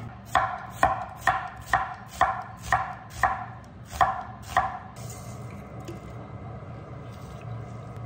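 Kitchen knife chopping through food onto a wooden cutting board: about nine even strokes, roughly two a second, each with a brief ring. They stop about five seconds in, leaving a low steady background.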